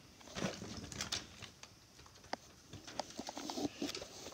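Scattered light clicks, knocks and rustles of handling as plastic Nerf blasters are picked up and moved about, with a couple of short squeaks.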